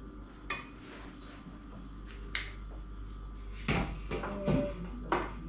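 Serving spoon knocking and scraping against a cooking pot as rice and peas are dished out onto a plate: several separate clinks, mostly in the second half, one with a brief metallic ring.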